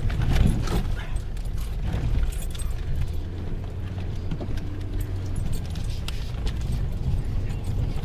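Off-road vehicle engine running with a low, steady rumble, with frequent light rattles and clatters over it.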